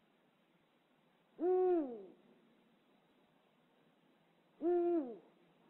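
Owl hooting: two calls about three seconds apart, each held on one low pitch and then dropping away at the end.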